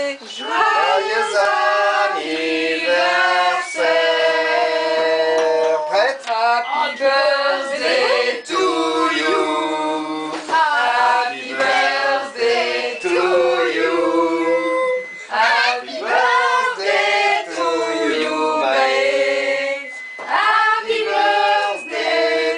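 A group of women and men singing a birthday song together.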